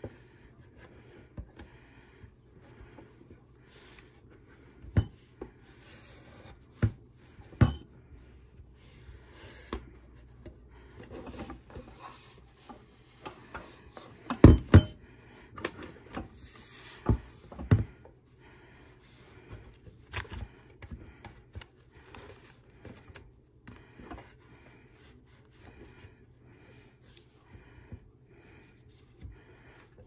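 A damp cloth rubbing over the underside of an antique rotary telephone, with scattered sharp clicks and knocks as the phone is handled and shifted; the loudest knocks come as a close pair about halfway through.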